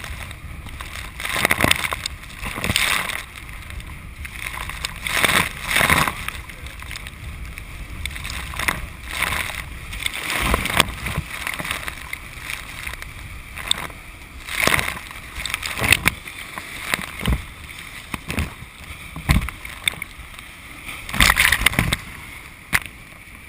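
Whitewater rapids of the Colorado River at very high water: a steady rush of water broken by loud splashes and surges every second or few, at irregular intervals.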